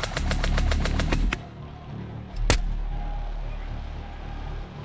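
A rapid burst of about ten airsoft shots in just over a second, then about a second later a single sharp shot, the loudest sound, from an HPA-powered bolt-action airsoft sniper rifle (Novritsch SSG10 with a Wolverine Bolt).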